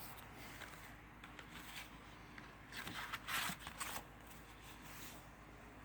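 Faint rustling and handling of paper inserts and plastic disc packaging, with a louder flurry of short rustles around the middle.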